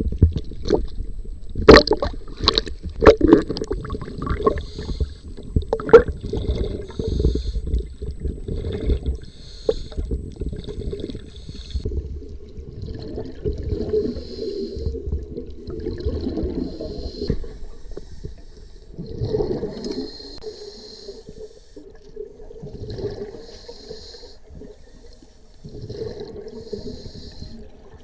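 Underwater scuba breathing through a regulator: each breath hisses and the exhaled bubbles gurgle, in bursts every few seconds, with a few sharp knocks in the first six seconds.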